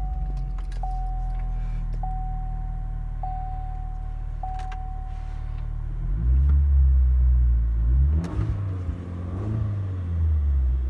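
2.7-litre turbocharged engine breathing through a Flowmaster 40 Series exhaust, heard from inside the cab. It idles with a steady low drone while a chime beeps five times about a second apart, then it is revved up and down several times over the last five seconds.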